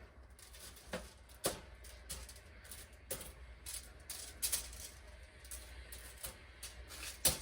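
Scattered light clicks and taps of kitchen utensils being handled, with a sharper clack near the end, over a low steady hum.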